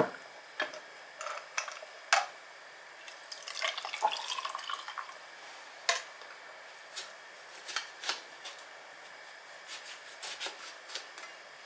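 A drink poured into glasses, with a stretch of liquid filling a few seconds in, among scattered light clinks and knocks of glassware and utensils.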